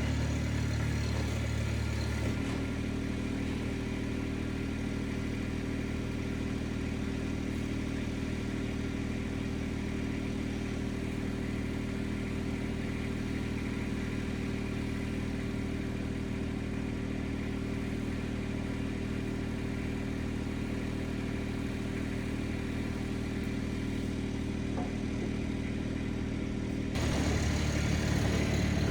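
RIPPA RS06 mini skid steer's engine running steadily, its note changing about two seconds in and growing louder near the end.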